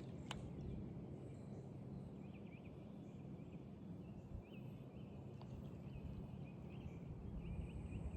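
Outdoor background at a creek: a steady low rumble with a bird's faint, short, high chirps repeating irregularly through most of it.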